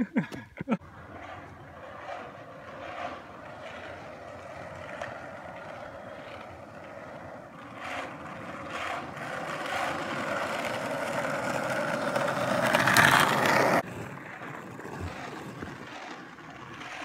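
Skateboard wheels rolling on asphalt: a steady rolling rumble that grows louder, with a few short knocks. It drops away suddenly about fourteen seconds in, and a quieter rolling sound carries on.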